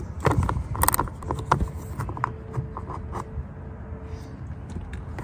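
Scattered clicks and light scraping of a bit driver backing a 10mm fastener out of a pickup's door trim.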